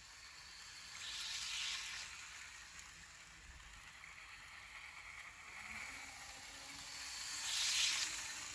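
Minitrix N-scale model freight train running around the track: a faint hissing whir of the small locomotive motor and the wheels on the rails, swelling louder about a second in and again near the end.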